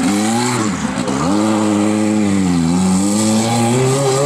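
Renault 5 Turbo rally car's turbocharged four-cylinder engine revving hard through a tight bend. Its pitch climbs, dips about a second in, climbs again, sags slowly, then rises once more near the end as the driver comes on and off the throttle.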